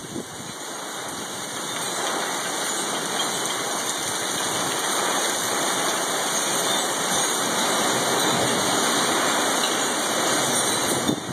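Heavy rain pouring down onto a gravel yard and garden plants: a dense, steady hiss that swells louder over the first two seconds and then holds.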